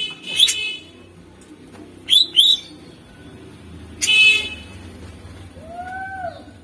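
Green leafbird (cucak ijo) calling: a few harsh, buzzy chirps in the first half second, two quick sharp chirps about two seconds in, and another buzzy burst about four seconds in. A soft arched whistle follows near the end.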